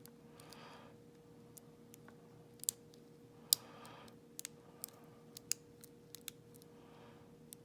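Irregular, sharp little metallic clicks of a lock pick and tension wrench working the pin stack inside a Schlage lock, the loudest about three and a half seconds in.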